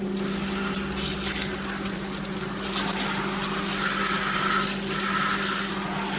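Water spraying steadily from a handheld shower head, an even hiss of running water with a steady low hum beneath it.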